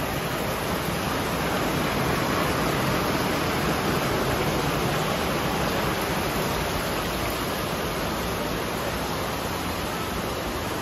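Heavy rain falling steadily on a pond and roofs, mixed with the rush of a small waterfall: an even hiss that swells slightly partway through.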